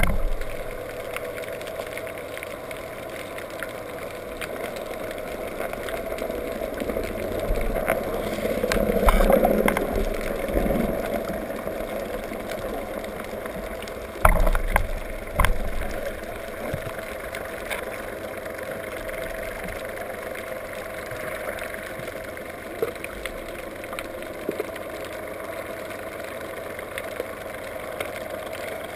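Steady muffled underwater noise picked up through a waterproof camera housing on a speargun, swelling once around nine seconds in, with two sharp knocks in the middle.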